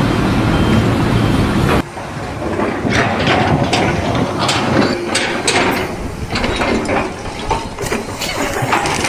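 A heavy engine running, which cuts off abruptly about two seconds in, giving way to a run of irregular sharp clicks and knocks, like machinery or tools working.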